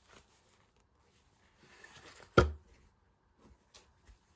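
Balls of yarn with paper label bands being handled, a soft rustle, then a single sharp thump about halfway through, followed by a few light taps.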